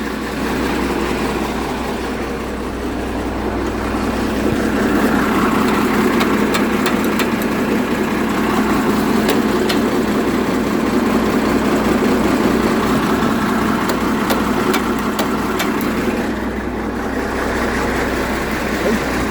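Vehicle engine running, getting louder from about four seconds in and easing off near the end, as a vehicle stuck in a snowy ditch is driven to try to pull out without getting moving. Faint clicks and ticks come through the middle.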